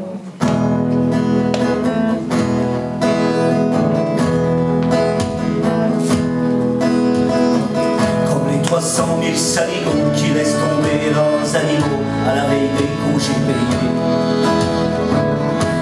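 Instrumental introduction of a French chanson played live by a small acoustic band: acoustic guitar, double bass and accordion. The music starts about half a second in and then runs at a steady level.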